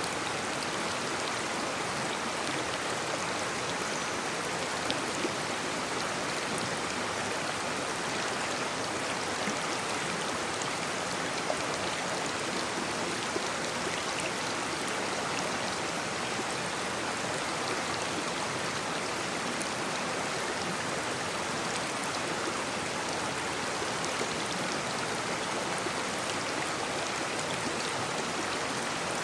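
A shallow brook babbling, its water running in a steady hiss with small splashes and trickles.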